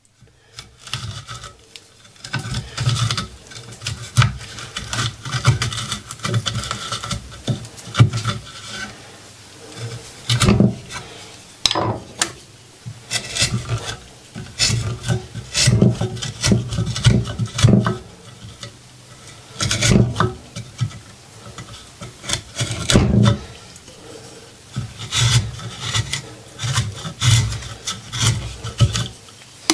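Hand chisel scraping and paring into the end grain of a wooden board in repeated, uneven strokes, with a few sharper knocks now and then.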